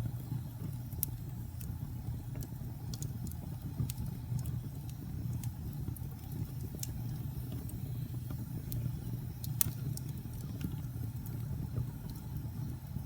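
Wood fire burning in a fireplace: a steady low rumble of flames with scattered sharp crackles and pops, the loudest about ten seconds in.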